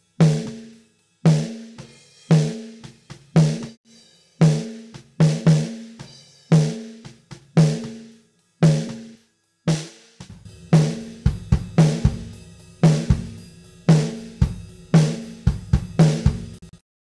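Playback of a recorded acoustic drum kit, with the snare compressed by the Acustica ARCTIC compressor/saturator plugin. At first it is mostly spaced, ringing snare hits with short gaps between them. About ten seconds in, the beat fills out with deep kick and tom hits.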